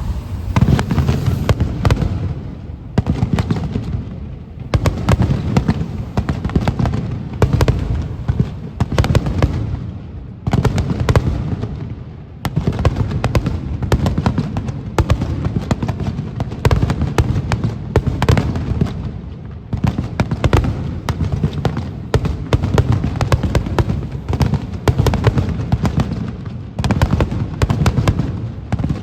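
Aerial fireworks display: rapid, near-continuous volleys of bursts and crackling bangs, dipping briefly every few seconds before the next salvo.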